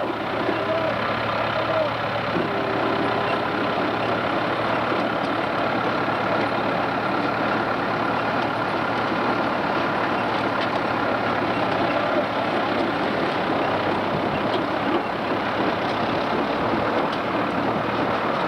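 Case IH 885XL tractor and Grimme RowOver potato harvester at work: a steady, unbroken mix of engine and machinery noise with a faint steady whine.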